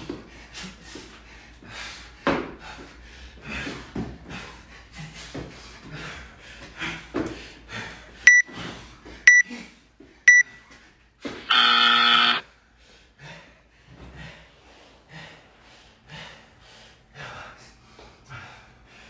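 Gym interval timer counting down: three short, high beeps a second apart, then one long beep, marking the end of the 10-minute time cap. Around them a person is panting hard after the workout.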